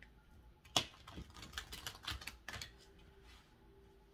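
A deck of tarot cards being shuffled by hand: a quick, irregular run of crisp card clicks and flicks for about two seconds, then it stops.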